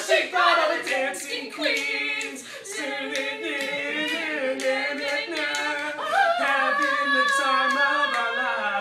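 Voices singing unaccompanied, holding and sliding between notes, over sharp claps keeping a beat of about three a second.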